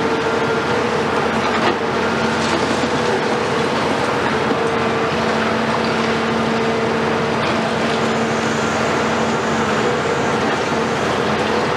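Cat C15 diesel engine of a CAT 374 high-reach demolition excavator running steadily under load, with a few sharp knocks of breaking concrete in the first seconds. A train runs past in the background.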